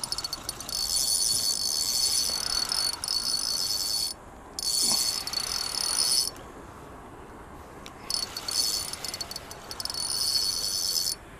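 Crickets trilling in three long, high, buzzing bursts, each a few seconds long, separated by short pauses.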